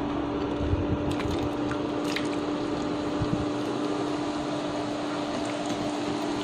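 Raw potato sticks sizzling steadily in hot oil as they start to deep-fry, the oil bubbling hard around the freshly added chips. A steady low hum runs underneath, with a couple of light clicks about one and two seconds in.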